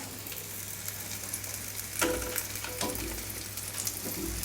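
Oil-brushed paneer tikka sizzling and crackling on the hot grill tray of a convection microwave oven just after a grill cycle. Two light knocks come about two and three seconds in.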